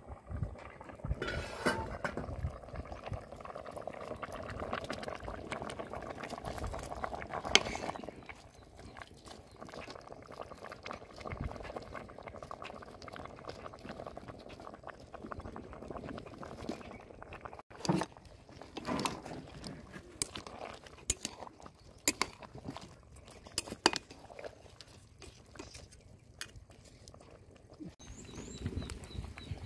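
A pot of broth bubbling at the boil, with scattered knocks and clinks of the pot and utensils.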